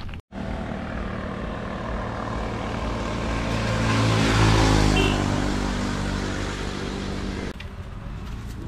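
An engine passing by: a steady motor drone grows louder to a peak about four to five seconds in, drops in pitch as it goes past, then fades, falling off abruptly near the end.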